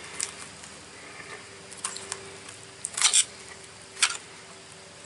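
A fillet knife scraping and clicking over a fish's rib bones as the blade is worked around the rib cage: a handful of short, crackly scrapes spread a second or so apart, the strongest about three seconds in, over a faint steady hum.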